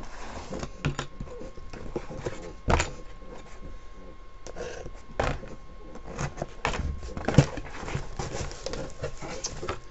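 Cardboard shipping box being cut and opened by hand: scraping and rustling of cardboard and tape, with several sharp knocks, the loudest about three seconds in and again past seven seconds.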